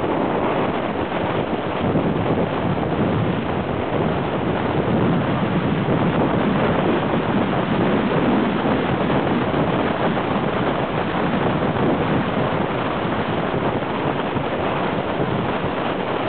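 Steady rushing of wind buffeting the microphone of a camera carried on a moving bicycle, from the rider's speed through the air.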